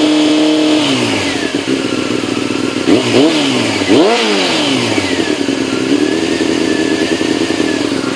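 Honda CBR600 F2's inline-four engine, running through a full stainless-steel exhaust. It is held at steady revs, drops back just under a second in, is blipped sharply twice about three and four seconds in, then settles to a steady idle.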